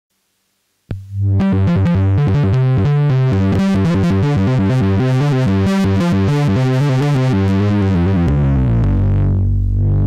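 Behringer Poly D analog synthesizer playing a distorted monophonic patch: it starts about a second in with a quick run of notes, then holds a low note from about eight seconds in. The held note's brightness dips and returns as the filter cutoff is turned.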